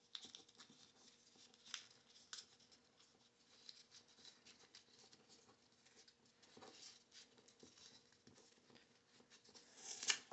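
Faint rustling and soft ticks of printer paper strips being rolled by hand into tight spirals, a little louder near the end.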